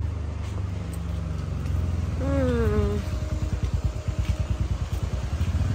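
Motor vehicle engine running with a steady low hum that turns into a fast, even pulsing beat in the second half. A short falling voice-like sound comes about two seconds in.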